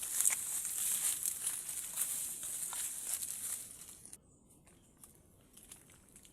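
Dense crackling and rustling with many small clicks, cutting off abruptly about four seconds in and leaving only a few faint clicks.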